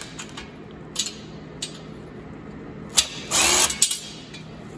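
A DeWalt cordless drill-driver with a socket whirs briefly, about three seconds in, spinning a nut off a caster mounting bolt. A few light metal clicks of the nut and bolt being handled come before and after it.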